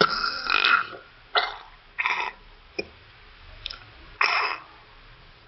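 Strange short, rough sounds, about five irregular bursts with a couple of brief clicks between them, which the uploader attributes to a guppy feeding on algae.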